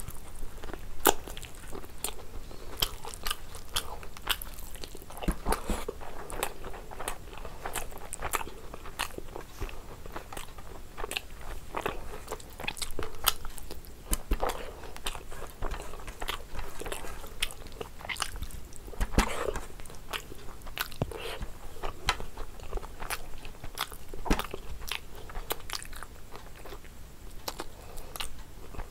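A person eating by hand: chewing and biting with many sharp, irregular crunches and mouth clicks.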